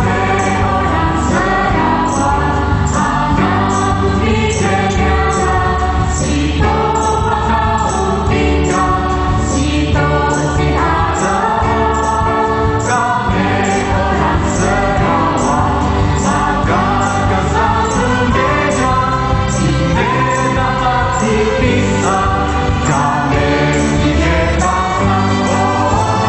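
Young voices singing a song in Sarawak Malay, alone and as a group, over a band accompaniment with percussion keeping a steady beat.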